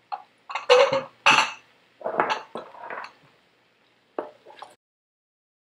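Raw diced potatoes tipped from a metal bowl into a stainless steel pot, the pieces clattering in several bursts over about three seconds. A few short spoon knocks against the pot follow near the end.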